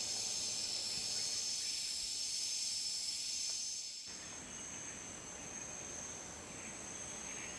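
Steady high-pitched drone of rainforest insects over a faint hiss; the background noise shifts slightly about four seconds in.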